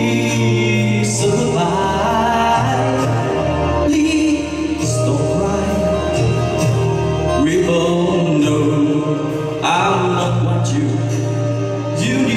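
A man singing a song into a handheld microphone over instrumental backing music, with long held notes that glide in pitch.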